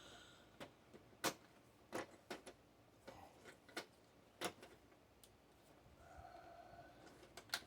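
Irregular sharp clicks and taps, about a dozen spread over several seconds, from the parts of a flat-screen TV being handled during teardown. A faint steady hum comes in near the end.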